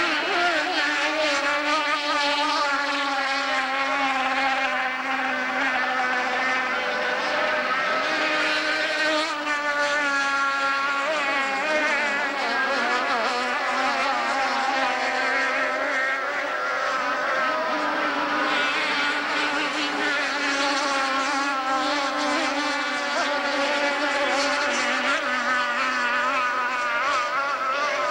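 Racing powerboat engines running flat out, several at once, their high-revving whine wavering in pitch and rising and falling as boats pass.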